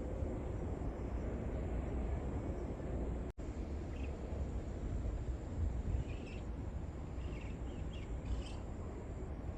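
Outdoor ambience: a steady low rumble of wind on the microphone, with a few faint, short bird chirps in the second half. The sound cuts out for an instant about a third of the way in.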